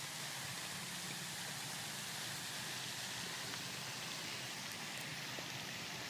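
Steady, even hiss of water from a pond spray fountain splashing down onto the water.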